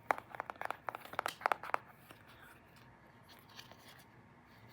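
A quick run of crisp crackles and clicks, like something being crinkled or handled close to the microphone, for about two seconds, then quiet room tone.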